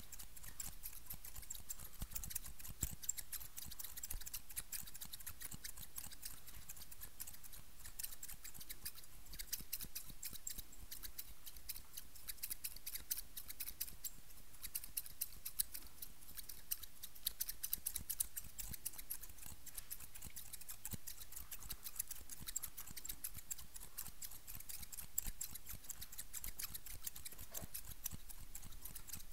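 Rapid, continuous snipping of metal barber scissors and white plastic-handled scissors worked right at the microphone, a fast run of crisp little clicks with no pause.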